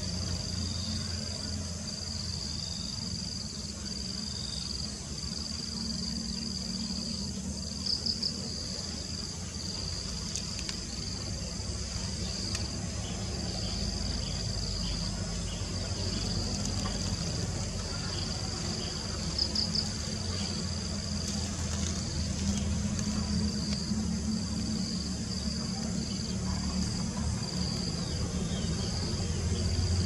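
Insect chorus in the forest at dusk: a steady high trill that breaks off and resumes every second or two, with two brief louder chirps, about 8 and 19 seconds in. A steady low rumble runs underneath.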